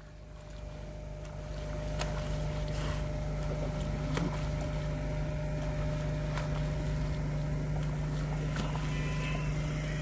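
Boat engine running with a steady low hum, growing louder over the first two seconds and then holding even.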